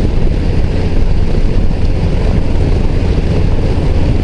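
BMW touring motorcycle cruising steadily in fifth gear at about 3000 rpm, around 70 km/h: a constant low engine drone mixed with wind rush over the rider's helmet.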